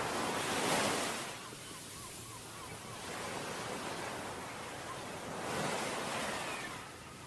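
Ocean waves breaking and washing up a beach, with steady surf noise throughout. The surf swells about a second in and again near the end. A faint run of short, high repeated notes comes just after the first swell.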